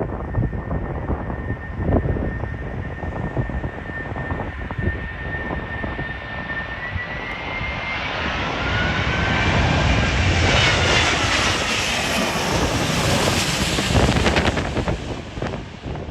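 Airliner's engines passing close by on a landing approach: a steady high whine that swells about halfway in, with pitch sweeping as it passes, then fades near the end. Strong gusty wind buffets the microphone throughout.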